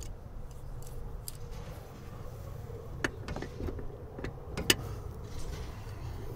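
A few short sharp metallic clicks and taps, about three seconds in and again, loudest, near five seconds, as a wrench is tried on a new plastic AC pressure switch; a low steady rumble underneath.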